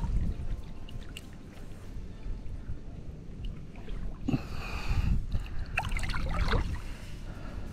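Water sloshing and splashing in two bursts, around the middle and again about two-thirds through, over a steady low rumble of wind on the microphone.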